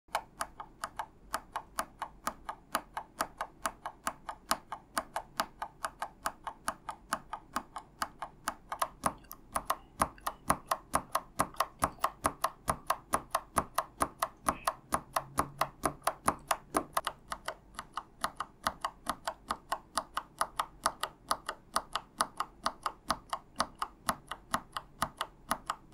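Mechanical keyboard switches on a switch tester being pressed over and over at about three or four presses a second. The three types are pressed in turn: a linear red switch, then a clicky blue switch, then a tactile brown switch.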